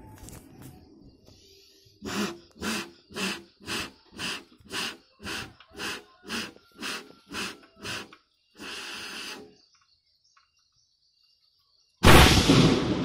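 A person blowing about a dozen short puffs into the touch hole of a bamboo cannon, about two a second, then one longer breath. About a second before the end, the bamboo cannon fires with a loud boom that rings on.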